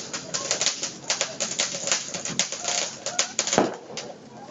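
A sparkling firecracker crackling with a rapid, irregular string of sharp pops, dying out about four seconds in.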